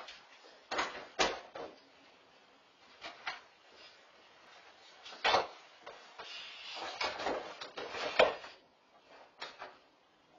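Clear plastic cinnamon-roll box being handled by a Dogue de Bordeaux: the box clacks and knocks as it is carried, dropped and mouthed. There are single sharp clacks, the loudest about five seconds in, and a busier stretch of rustling and clattering from about six to eight seconds as the dog noses at the box.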